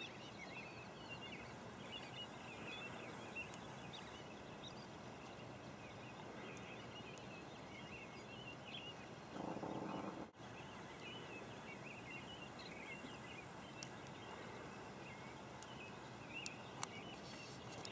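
Faint chorus of small birds chirping steadily in the distance, with a brief rush of noise a little past halfway and a few light ticks near the end.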